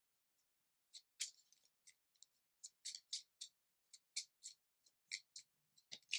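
Tarot cards of the Autumn Embers Tarot Majors deck being shuffled by hand: a run of short, soft card swishes and slaps, about three or four a second, starting about a second in.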